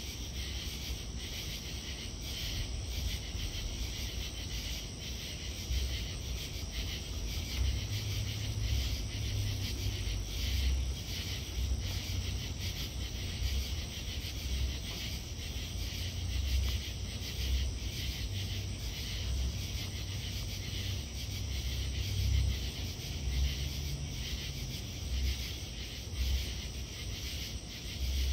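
Night-time insect chorus: a steady high buzzing trill with scattered faint ticks, among them a greater anglewing katydid clicking. Under it runs an uneven low rumble that swells and fades, louder from about six seconds in.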